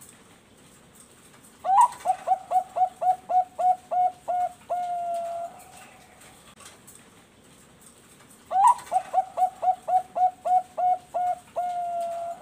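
Zebra dove (perkutut bangkok) singing its cooing song twice. Each phrase opens with a rising note, runs into about ten quick, clipped notes, and ends on one long held note.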